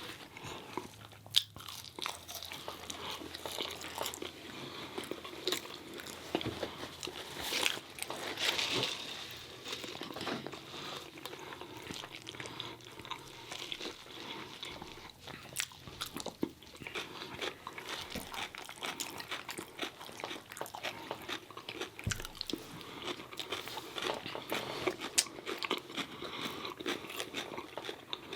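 Close-miked eating: a steady run of crunchy bites and chewing of fried chicken tenders and fries, full of small clicks and smacks.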